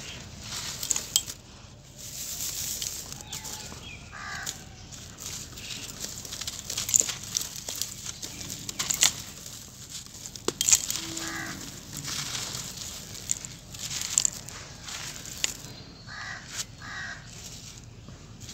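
Dry, dusty sand-cement lumps crumbled and crushed in bare hands: a gritty crunching and crackling with grains pattering down, and a few sharper snaps. A crow caws in the background about four times.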